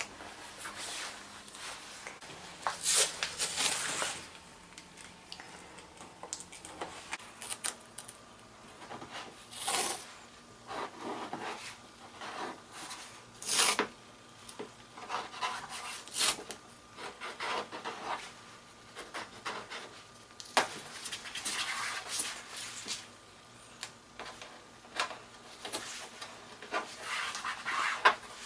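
Blue masking tape being pulled off the roll and rubbed down along the edges of a car headlight: irregular noisy pulls and rubs, some short and some longer, with brief pauses between them.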